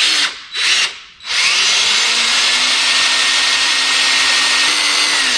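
Power drill boring into a bolt broken off in the cylinder head of a Honda 125M three-wheeler, drilling it out for extraction. Two short bursts, then a steady run of about four seconds.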